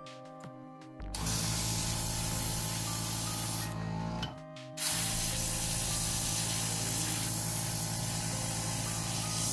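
Small airbrush compressor running with a steady hum while air and thinner hiss out of the airbrush into a rag as the gun is blown clean. It starts about a second in, stops briefly near the middle, then runs again.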